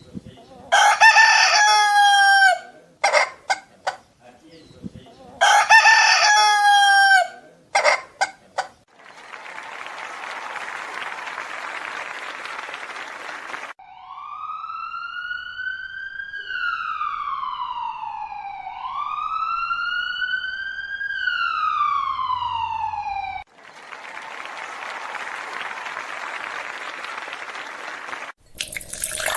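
A rooster crows twice, then a siren wails in two slow rising-and-falling sweeps that stop abruptly. A steady hiss fills the gaps between the sounds.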